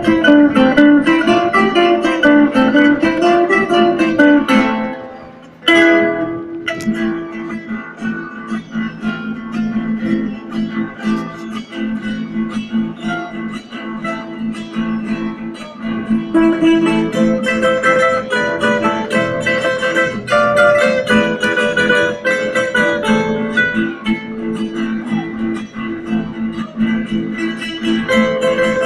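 Ensemble of acoustic guitars and other plucked string instruments playing. The music dies away about five seconds in, then starts again with a sudden strummed attack a second later and carries on.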